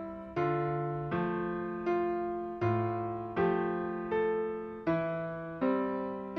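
Background music: electric piano playing gentle chords, a new chord struck about every three-quarters of a second and each fading before the next.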